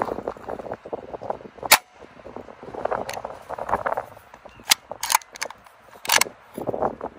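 Gamo Arrow shrouded PCP air rifle firing quiet, sharp cracks a second or more apart, with the clicks and clacks of its rear cocking lever being cycled between shots.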